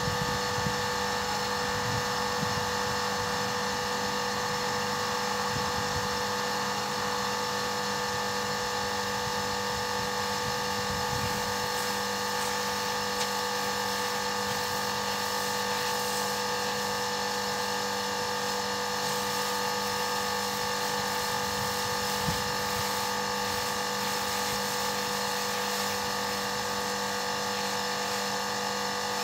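Kärcher HD 5/15 C pressure washer running steadily, its motor and pump giving a constant hum with several fixed tones, over the hiss of the high-pressure spray. This is the washer's test run under load after its pump rebuild.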